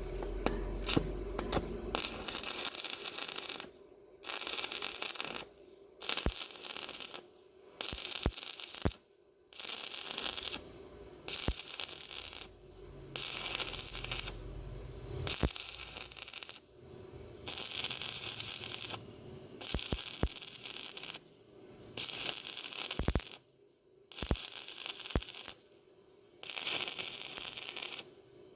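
Stick-welding arc crackling in short bursts of about a second each, one roughly every two seconds, as in a run of tack welds.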